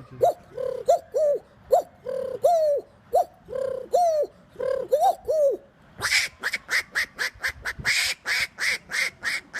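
A man imitating bird calls with his voice: a run of short cooing calls, each bending up then down in pitch. About six seconds in he switches to a fast string of sharper, higher-pitched calls, several a second.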